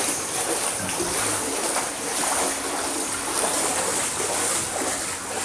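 Steady splashing and churning of pool water as a Boston terrier dog-paddles through it.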